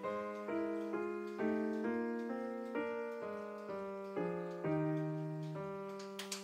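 Gentle background piano music, a steady run of single notes, with a few sharp clicks near the end.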